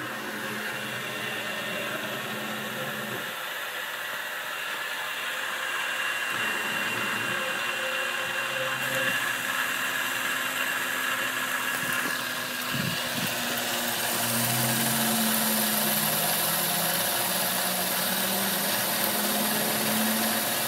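Grizzly G0704 benchtop mill, converted to CNC, spinning a quarter-inch end mill and cutting a polycarbonate sheet. A steady machine sound, with lower tones that step in pitch as the axes move; the cutting hiss grows louder about two-thirds of the way in.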